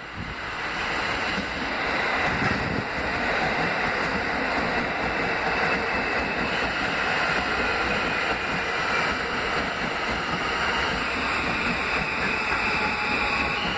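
New York City Subway R160 train with Alstom propulsion passing on a nearby track: steady rumble of the cars and wheels on the rails, building over the first couple of seconds and then holding level. A faint high tone comes in near the end.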